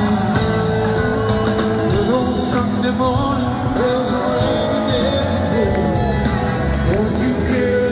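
Live rock band playing through an arena PA, with singing over the band, heard from the stands in a large echoing hall.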